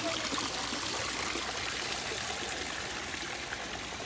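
Water pouring from a stone spout into a small garden pool, a steady trickle and splash.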